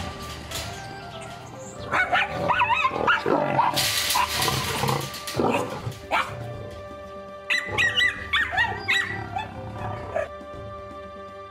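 Dogs barking and yapping in two bouts of short wavering high-pitched cries, about two seconds in and again around eight seconds, over background music with steady held notes.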